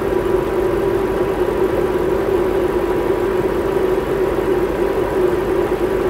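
BMW 7 Series (E66) engine idling steadily in the engine bay, with the air conditioning running on high while the system is charged with refrigerant.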